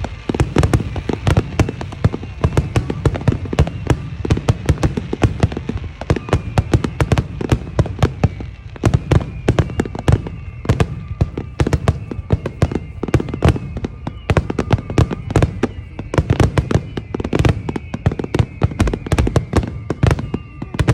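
A dense, continuous barrage of aerial firework bursts: sharp bangs several times a second, one after another, without a pause.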